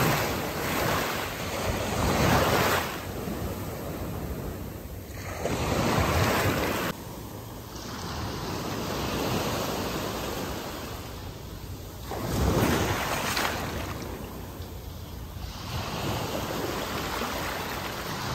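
Small waves breaking and washing up over wet beach sand, then drawing back, the surf swelling and falling every few seconds.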